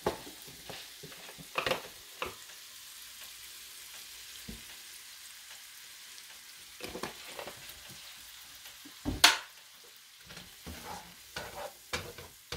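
Beans and diced vegetables frying in oil in a non-stick skillet: a steady sizzle, with a wooden spatula scraping and tapping the pan as the mixture is stirred. A sharp knock stands out about nine seconds in.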